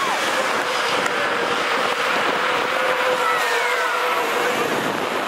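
Diesel bus engines running as several buses drive past on the racetrack, with a steady whine over the engine noise and a couple of brief falling squeals about three seconds in.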